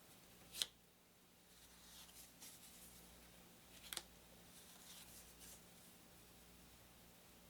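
Thin, uncoated paper game cards being handled: faint rustling of cards slid and turned over, with two sharp snaps or taps, one about half a second in and one about four seconds in, as cards are flicked or laid down.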